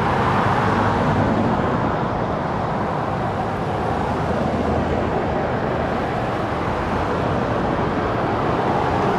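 Steady city street traffic noise: cars passing through an intersection, a low engine hum under an even wash of tyre and road noise.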